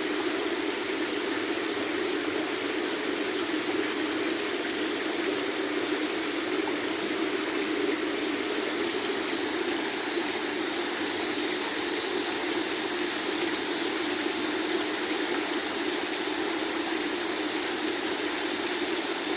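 Cicadas chorusing in a steady, unbroken drone, over a steady low rushing noise.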